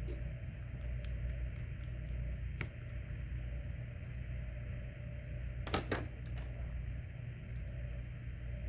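A few small, sharp clicks of a screwdriver and tiny screws being handled while screws are taken out of a smartphone's frame, a single click about two and a half seconds in and a quick pair near six seconds, over a steady low hum.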